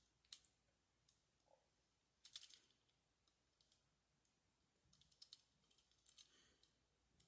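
Near silence broken by a few faint, scattered clicks and taps from a small diecast toy car with a plastic body being handled and turned over in the hands.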